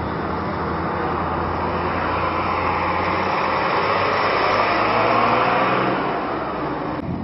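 Farm tractor engines running with trailers in tow, swelling louder around the middle as one passes close.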